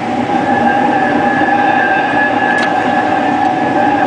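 A 1926 Whitcomb 4-ton storage battery locomotive's electric traction motor and gearing running under load, drawing about 40 amps: a steady whine over a rumble, with a single click about two and a half seconds in.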